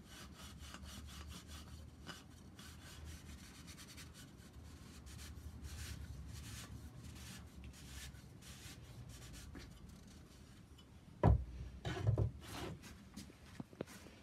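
Cloth rubbing in quick strokes over a wooden kitchen roll stand, wiping on a boiled linseed oil finish. Near the end come a few sharp knocks of wood on the bench, the loudest sounds, as the stand is set down.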